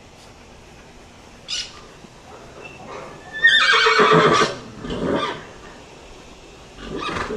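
A horse whinnying about halfway through, loud and about a second long, with a shorter call right after it.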